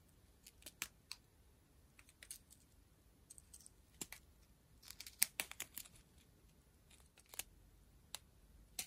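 Faint handling of a diamond-painting kit's plastic packaging: scattered light crinkles and clicks, with a quick cluster about five seconds in.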